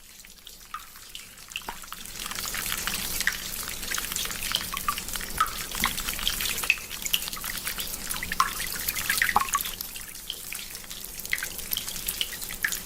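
Peeing sound effect: a stream of urine trickling and splashing into toilet water, full of small drips. It starts faint, swells about two seconds in and runs on steadily.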